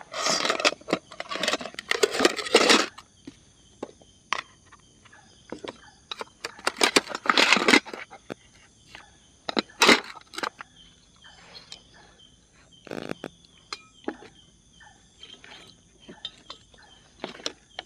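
A plastic bag rustling and small clicks and knocks of camping gear being handled as a portable gas stove is unpacked and set up. Under it runs the steady high chirring of night insects.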